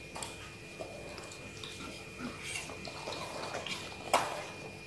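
Siberian husky chewing and slurping juicy watermelon flesh from a hollowed half-rind: irregular wet smacking and clicking, with one sharp click about four seconds in.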